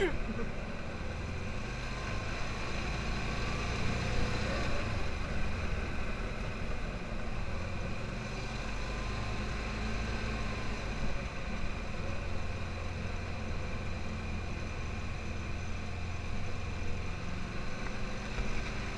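Engine of an open off-road buggy running steadily as it drives along a dirt track: a steady low rumble.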